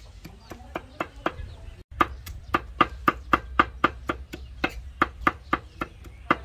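A cleaver chopping on a round wooden chopping board in quick, even strokes, about four a second. The sound cuts out briefly about two seconds in, and the strokes after it are louder.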